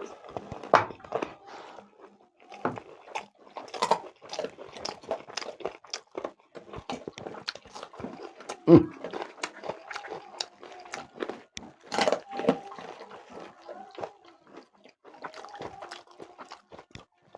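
A person eating chicken leg curry close to the microphone: irregular bites, chewing and crunches.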